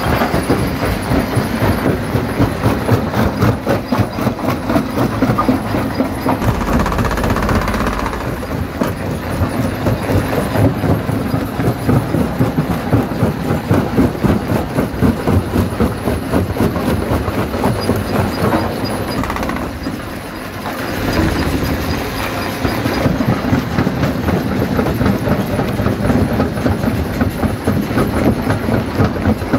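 Stone jaw crusher running and crushing rock: a steady machine drone under dense, continuous clattering and cracking of stone, easing briefly about two-thirds of the way through.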